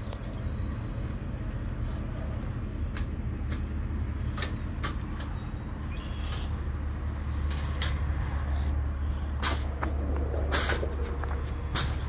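Metal clinks and rattles from a wire live-catch cage trap as its door end is handled, a scatter of sharp knocks with the loudest near the end, over a steady low rumble.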